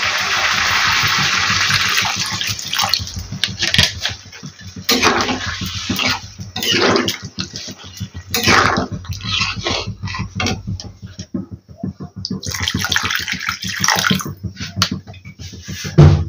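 Water poured into a hot kadhai of fried masala and vegetables to make the gravy. There is a steady pouring rush for the first couple of seconds, then shorter broken splashes and pours, with a low knock at the very end.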